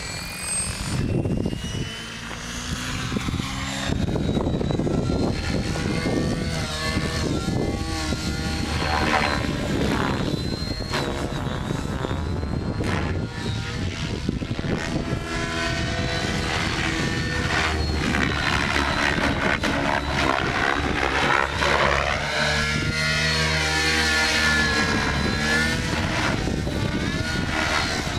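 Electric 700-size RC helicopter (Assault 700 DFC, Align motor) spooling up and flying. The motor and rotor whine rises in pitch over the first few seconds, then holds steady as it flies, with the rotor sound sweeping up and down in pitch as it passes back and forth.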